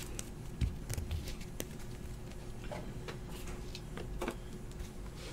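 Faint, scattered light clicks and taps of trading cards and card holders being handled and set down on a table mat.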